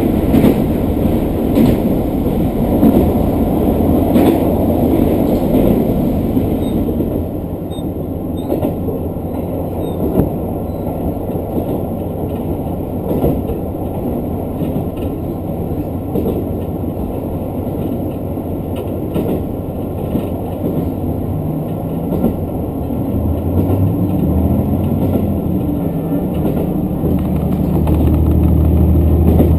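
Diesel local train running along the line: a steady rumble of wheels on rail with scattered clicks from the track. Near the end a rising engine note comes in and grows louder as the train pulls harder.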